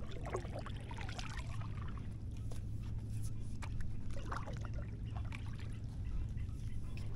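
A stand-up paddle dipping and pulling through calm water, with trickling and dripping from the blade between strokes, over a steady low rumble.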